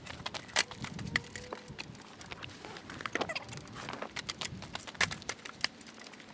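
Irregular light clicks, scuffs and rustles from replacement vinyl awning fabric being hand-fed and pulled along the RV awning's track.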